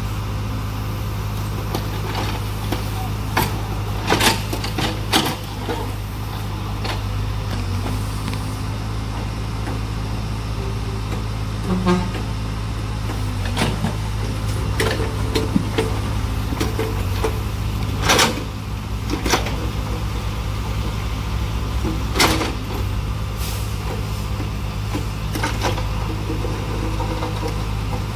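Diesel engine of a backhoe loader running steadily at work. Sharp clanks and knocks come at irregular intervals over it.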